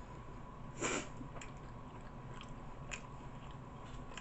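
Faint close-up chewing of a Philly cheesesteak sandwich on toasted bread, with a few short mouth clicks and smacks; the loudest is about a second in.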